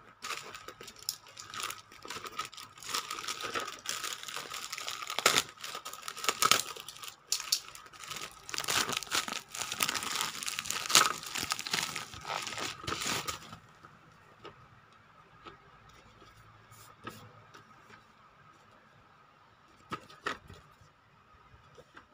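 Packaging of a GAN 356M speed cube being torn and crinkled open for about thirteen seconds, then a few light clicks and taps, two of them close together near the end.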